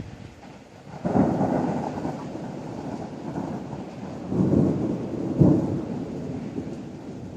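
A thunderclap breaks suddenly about a second in and rolls on as a rumble, swelling twice more about halfway through, over steady heavy rain.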